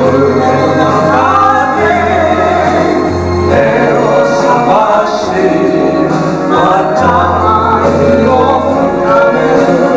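A man and a woman singing a Japanese karaoke duet into microphones over a recorded backing track with sustained bass notes that change every second or two.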